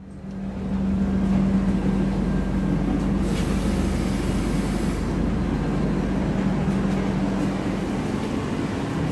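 Train noise: a steady mechanical hum with a low rumble, fading in over the first second.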